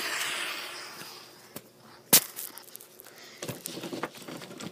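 Handling noise from a hand-held camera: a rubbing hiss of it brushing against clothing and skin that fades over the first second and a half, then one sharp knock about two seconds in, followed by a few light knocks and rustles as it is settled on the carpet.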